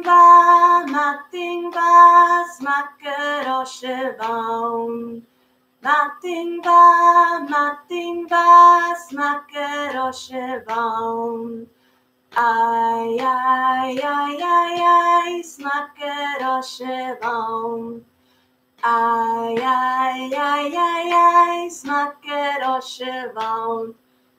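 A woman singing a children's song in Scottish Gaelic, unaccompanied, in four short phrases with brief pauses between them, each phrase ending on a held lower note.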